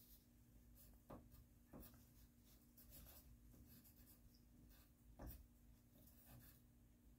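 Near silence: room tone with a faint steady hum and a few soft rustles, about a second in, just before two seconds and past five seconds.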